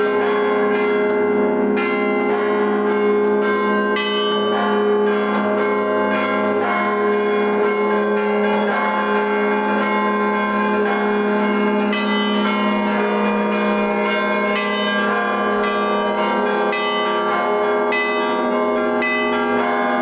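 Russian Orthodox church bells rung by a single bell ringer pulling the clapper ropes. Quick, frequent strikes on the small bells ring over the steady, sustained hum of the larger bells.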